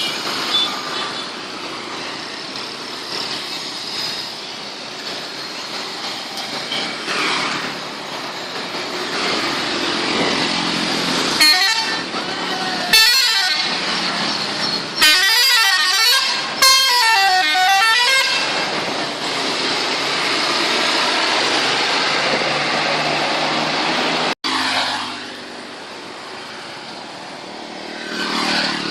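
Tour-bus telolet horns, multi-tone musical air horns, sounding warbling tunes in several blasts over steady traffic noise. The blasts are loudest from about twelve to eighteen seconds in.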